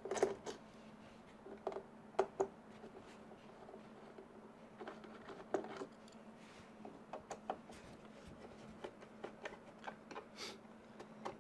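Small screwdriver turning out screws from an Ender 2 Pro 3D printer's panel: scattered faint clicks and ticks of the tool and screws on metal and plastic.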